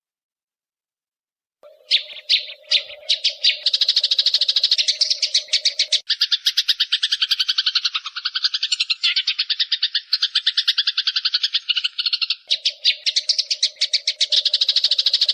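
Eurasian tree sparrow giving its long agitated 'fighting' chatter. A few separate chirps about one and a half seconds in quickly run together into a continuous, very fast rattling chatter.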